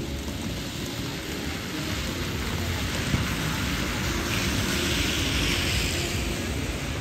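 A heavy road vehicle's engine rumbling low under the steady hiss of rain and wet road. A louder hiss swells up between about four and six seconds in, then fades.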